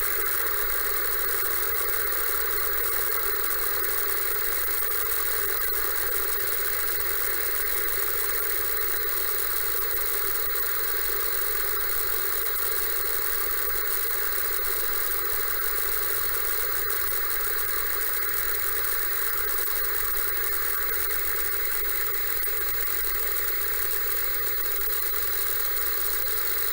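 1980s Russian Tele Star 4004 analog television giving off a steady, hissing modulation noise with fine crackles running through it.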